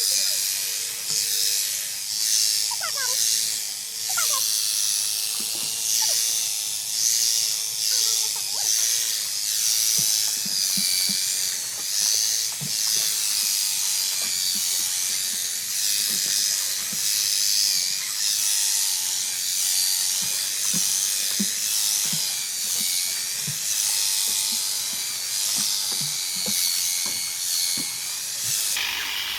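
Electric sheep shears running steadily while they cut through the fleece, their high buzz pulsing unevenly as the blades work.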